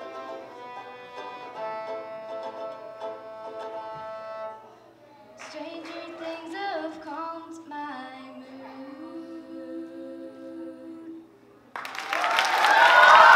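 Violin and banjo playing a tune together, stopping about four and a half seconds in. After a short pause, a short sung phrase with sliding notes follows. Near the end, the audience breaks into loud cheering and applause.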